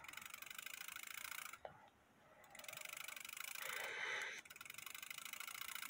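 Brass movement of a Dutch Sallander 8-day wall clock running while held in the hand, its escapement giving a fast, rattling tick that breaks off for about a second partway through. The repairer suspects it is running a little too fast.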